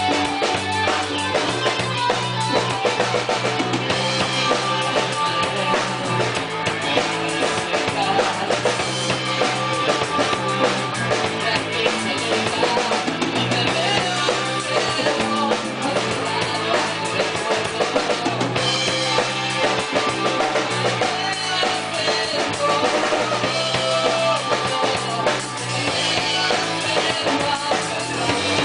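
Rock band playing an instrumental passage live: drum kit with bass drum, snare and rimshots, over bass and guitar, picked up by a room microphone.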